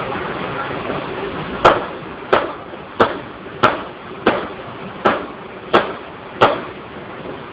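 A steady rushing hiss, cut into by eight sharp, evenly spaced knocks about two-thirds of a second apart, starting a little under two seconds in.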